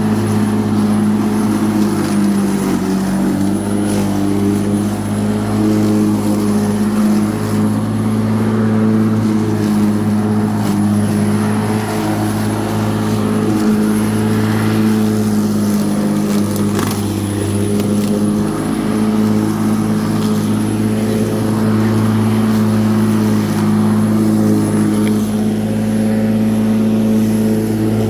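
Black and Decker 1800 W electric rotary lawnmower running steadily as it cuts grass, a constant motor hum with a faint high whine and a slight dip in pitch about three seconds in.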